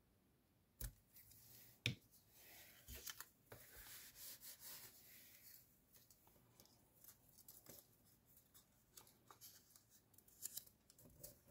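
Small pieces of paper being handled and folded by hand: soft rustling and crinkling, with two sharp clicks about one and two seconds in and faint light taps and creases later on.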